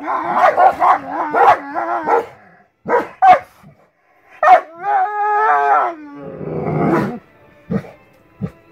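Two dogs fighting at close quarters: a rapid tangle of snarls and yelps, two sharp cries, then one long drawn-out cry about halfway through. Rough growling follows, with two short yelps near the end.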